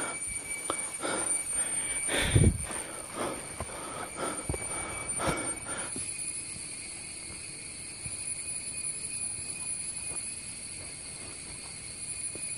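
Irregular footsteps and rustling for about six seconds, with one heavier thump about two seconds in, over a steady, high insect chorus that carries on alone afterwards.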